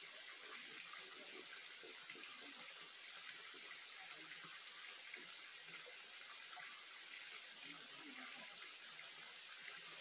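Stream water flowing steadily, with a continuous high insect drone above it.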